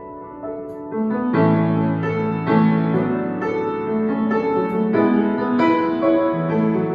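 Piano playing a slow introduction of sustained chords, growing fuller with bass notes from about a second in, the chords changing about once a second.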